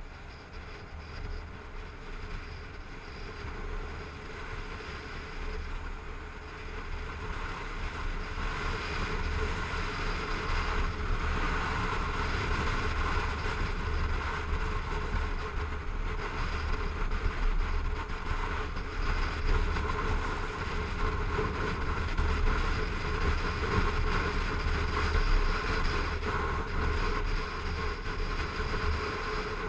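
Sport motorcycle riding on a highway: engine running steadily with wind rushing over the helmet-mounted microphone, growing louder over the first ten seconds or so and then holding level.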